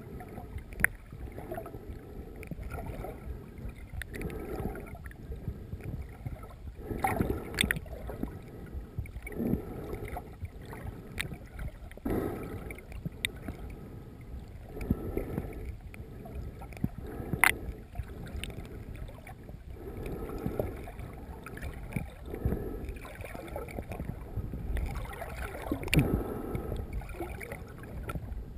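Muffled underwater water noise around a snorkeler's camera held below the surface, swishing in uneven surges every second or two as the swimmer moves. A few sharp clicks stand out, the loudest about 17 s in.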